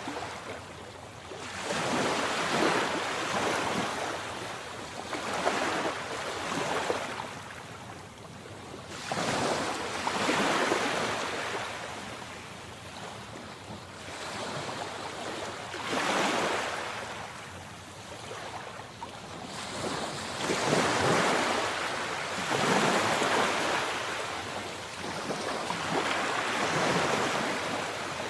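Sea waves breaking and washing in, a rushing sound that swells and fades every few seconds.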